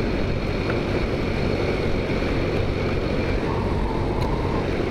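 Taotao Zummer scooter riding at steady speed: its small engine drones beneath steady wind rush on the microphone.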